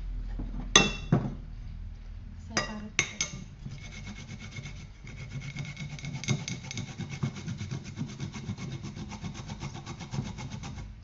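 A few sharp knocks, then fresh ginger grated on a hand grater: fast, even rasping strokes from about four seconds in.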